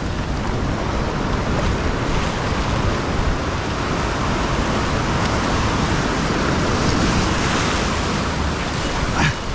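Ocean surf breaking and washing over a rocky shore ledge: a steady rushing of water and foam that swells louder about two-thirds of the way through, with wind buffeting the microphone. A brief sharp sound comes just before the end.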